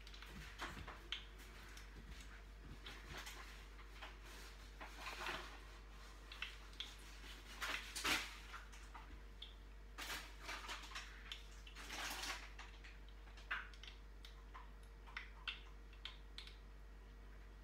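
Faint, scattered clicks, taps and short scrapes of kitchen handling, the loudest about eight and twelve seconds in, over a steady low hum.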